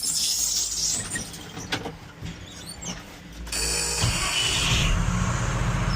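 Ford F700 dump truck's engine running, with a few mechanical knocks early on. About three and a half seconds in it grows louder with a rushing hiss, then settles into a steady low running hum.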